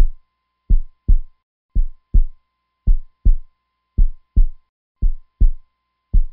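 Heartbeat sound effect: slow, low lub-dub thumps in pairs, about one pair a second, with a faint steady high tone underneath.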